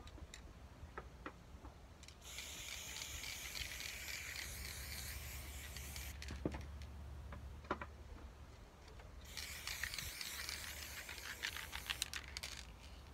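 Aerosol spray-paint can spraying in two long hissing bursts of about four seconds each, with a few faint clicks in the pause between them.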